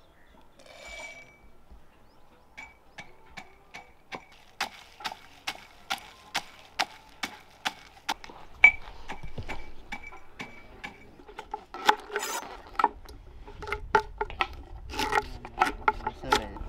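A steel pestle pounding peanuts in a stainless-steel mortar: sharp metallic knocks at a steady beat of about three a second, each with a brief ring. A little past the middle the knocks grow louder and less regular.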